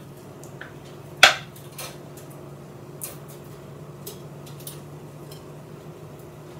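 A few light clinks of a fork and a ceramic dinner plate being handled, one sharper clink about a second in, over a steady low hum.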